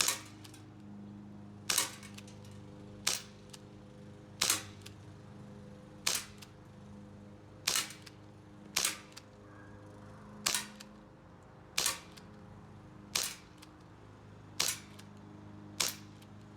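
Cheap full-plastic non-blowback airsoft 1911 pistol firing twelve single shots, about one every second and a half, emptying its 12-round magazine.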